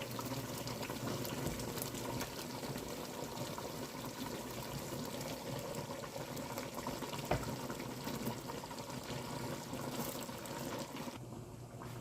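Plantain and pepper sauce cooking in a pot, a steady bubbling and sizzling with a small click about seven seconds in. The sound cuts off near the end.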